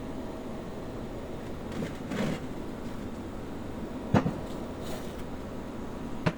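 Steady mechanical hum with three short knocks, about two seconds apart, the last two sharper than the first.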